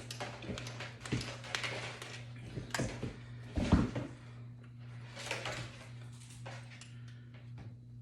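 Allen wrench working a bolt on a bicycle being assembled: a series of irregular metal clicks, scrapes and knocks, the loudest knock a little under 4 seconds in, over a steady low hum.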